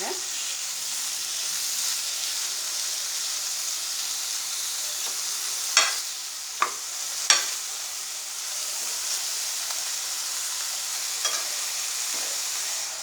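Prawns frying in onion-and-spice masala in a kadai over medium heat, a steady sizzle, with a few sharp knocks of a spoon against the pan about six to seven seconds in and once more near the end.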